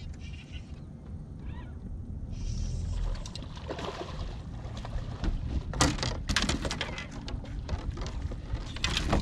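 A hooked bass being fought to the side of a boat and landed by hand: splashing and knocks that come thick and sharp from about halfway through, over a steady rumble of wind on the microphone.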